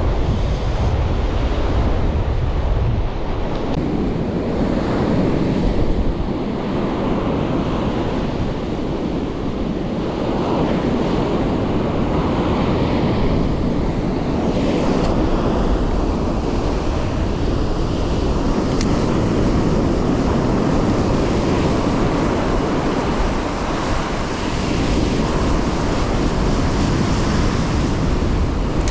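Ocean surf washing onto a sandy beach, with wind buffeting the microphone, heaviest in the first few seconds.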